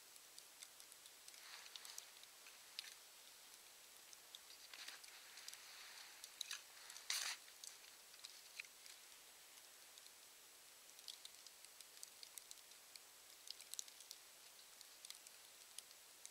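Near silence: faint scattered ticks with a few brief soft rustles, the strongest about seven seconds in.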